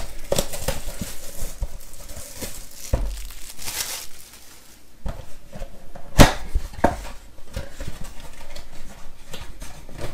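Plastic shrink-wrap crinkling and tearing as it is peeled off a cardboard trading-card box, in a run of crackles and clicks, with one loud sharp snap about six seconds in.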